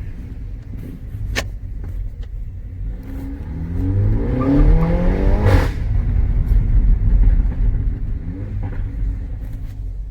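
Mini Cooper engine and exhaust accelerating, the revs climbing for about two seconds and broken by a sharp crack about five and a half seconds in. It then runs on more steadily, with a smaller rise in revs near the end.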